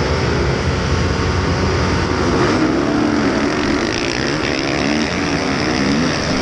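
Honda motocross bike's engine at full throttle, heard on board. Its pitch climbs and drops several times as it shifts up through the gears while accelerating among other motocross bikes.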